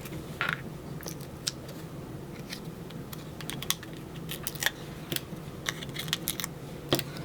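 Scattered light clicks and taps, with a brief papery rustle about half a second in: paper cutouts being handled and pressed down onto foam adhesive squares on a craft work surface.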